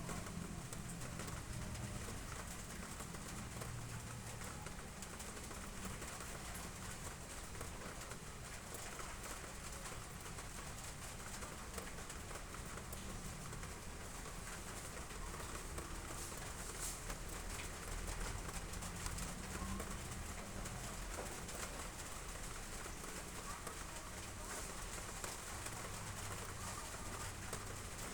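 Steady rain falling, an even continuous patter with no distinct events.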